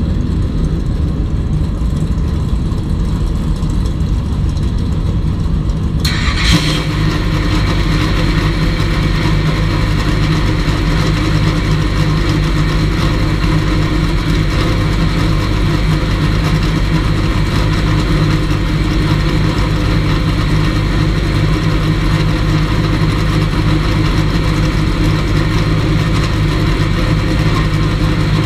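Vintage Chevrolet race car's engine idling steadily, heard from inside the cockpit with the car standing still. About six seconds in, a steady higher whine joins and holds.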